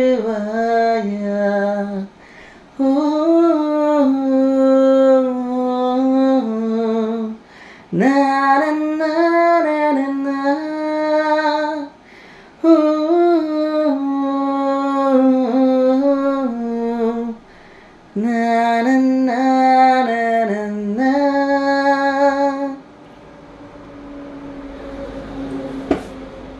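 A Tamil film song with a melodic sung vocal, played through a small PA amplifier and its speaker and heard in the room, in phrases with short pauses. About 23 seconds in the song ends, leaving a low hiss, and a single sharp click comes near the end.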